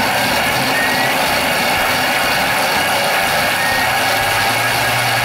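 Thermomix TM5 food processor running its blade at high speed, pureeing hot cooked tomatoes into sauce: a loud, steady motor whir. A low steady hum joins about four seconds in.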